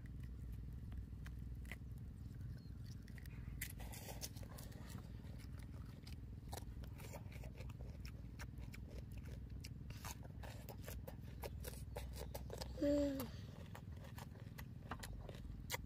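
Close-up eating sounds of a person chewing and tearing grilled chicken with his hands, many small clicks and smacks over a steady low hum. About 13 seconds in comes a brief falling hummed note, the loudest sound.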